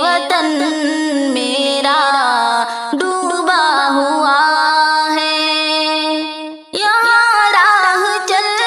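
A woman singing an Urdu nazm, an elegiac poem, in long held notes with melodic ornaments, with a short breath pause about two-thirds of the way through.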